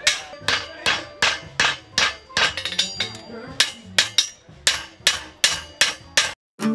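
Hand hammer striking a red-hot steel knife blade on an anvil, about two to three ringing blows a second, with a quick run of lighter taps about midway. The hammering cuts off abruptly just before the end.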